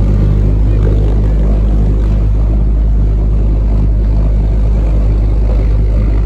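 JB-2 Loon pulse jet engine, a copy of the German V-1's, running steadily with its loud, deep buzz.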